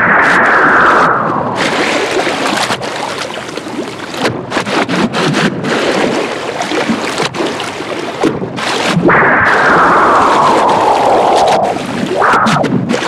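Modular-synthesizer noise like rushing wind and surf. It is a loud, steady hiss full of short crackles, with two long falling whooshes: one at the start and one about nine seconds in.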